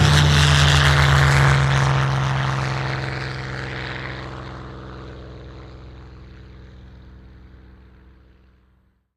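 Propeller aircraft's piston engine running with a steady, unchanging pitch, loud at first and then fading gradually away to nothing over several seconds.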